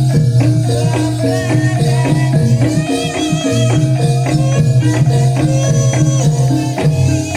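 Javanese jaranan gamelan music for the prajuritan dance. Metal-keyed instruments play a quick repeating pattern over low held tones, with a high wavering melody line on top.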